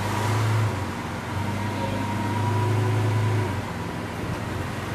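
Lamborghini Veneno Roadster's V12 engine running at low revs with light throttle as the car creeps up a loading ramp. The drone swells twice, dipping briefly about a second in, and drops back near the end.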